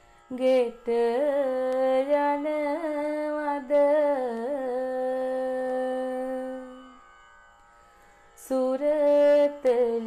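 Music: a single ornamented melody line with bending, held notes, in the style of South Indian classical music. It plays as two phrases with a pause of about a second and a half near the end.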